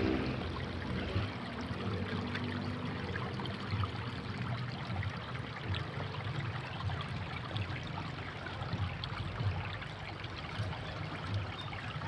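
Shallow water trickling and lapping among rocks, full of small irregular ticks and drips, over a low unsteady rumble.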